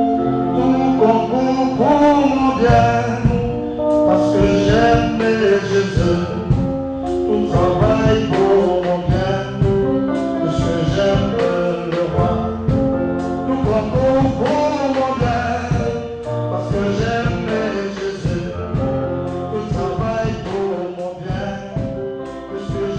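Christian song with a voice singing in French over instruments and a steady beat, gradually getting quieter over the second half.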